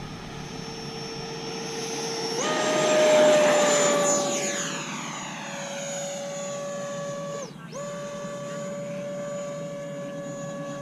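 Whine of the 80 mm electric ducted fan in an FMS BAE Hawk RC jet. It runs steady at low throttle, then steps up in pitch and loudness about two seconds in as it goes to full throttle for takeoff, and is loudest just after. It then holds a steady whine in flight, with a brief dip in pitch about seven and a half seconds in as the throttle is eased and reopened.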